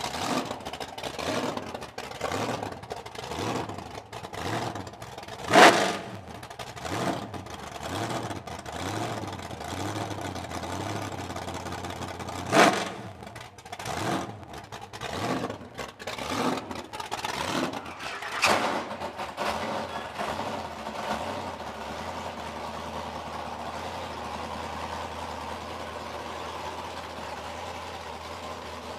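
Supercharged 406 cubic-inch Chevrolet small-block V8 with a 6-71 blower, blipped repeatedly with three sharp, loud revs about 6, 13 and 18 seconds in, then settling into a steady idle for the last third.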